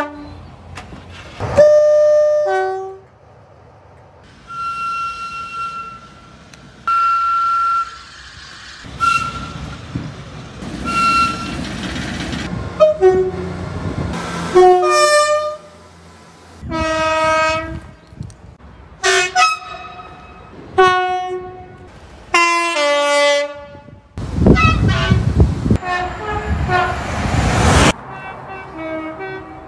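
A run of train horn blasts from different trains, one short clip after another, many of them two-note calls with a higher note followed by a lower one, and four short single-note blasts early on. A passing train's rumble swells near the end.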